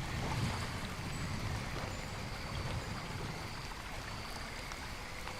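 Rain-and-nature ambience: a continuous wash of rain and running water with a low rumble and scattered small drop ticks.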